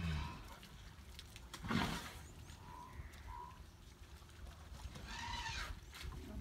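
A herd of African bush elephants at a mud wallow: wet mud sounds and animal noises over a low rumble, with one loud sudden burst about two seconds in.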